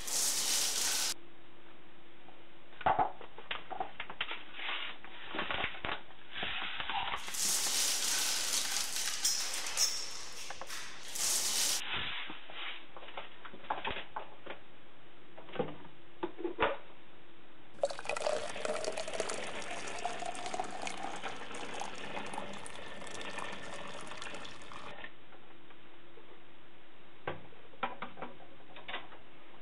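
Sugar and malt powder poured from their paper bags into a plastic tub, with scattered taps and rustles. Then, in the second half, water is poured in for several seconds, splashing and rising slightly in pitch as the tub fills.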